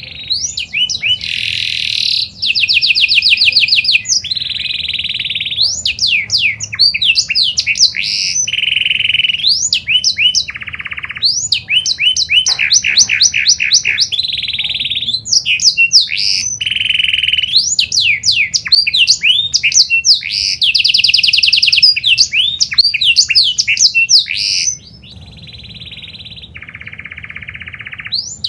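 Pied domestic canary singing a long, unbroken song of fast rolling trills and quick sweeping whistled notes, dropping to a softer passage near the end.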